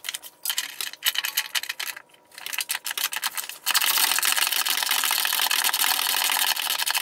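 Socket ratchet clicking rapidly while a 19 mm bolt on the BMW Z3's rear differential bushing is turned out. The clicking comes in short spells at first, then runs fast and continuous from a little past halfway.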